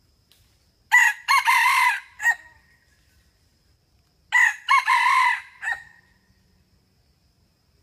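Red junglefowl rooster crowing twice, about three seconds apart; each crow is a short broken run of notes lasting about a second and ending in a clipped final note.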